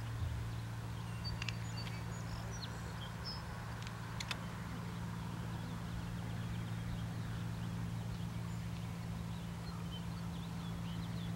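Birds calling in short, high chirps, busiest in the first four seconds and fainter later, over a steady low hum and a soft constant hiss. Two sharp ticks come about one and a half and four seconds in.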